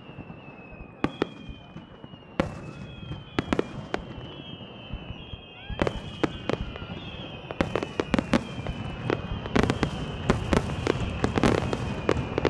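Aerial fireworks bursting: sharp bangs and crackles, coming thicker and louder over the last few seconds.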